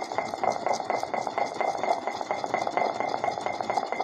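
Wooden pestle grinding a wet seed paste in a stone mortar, in quick, continuous rubbing strokes. A little water has just been added and the seeds are being worked into a fine paste.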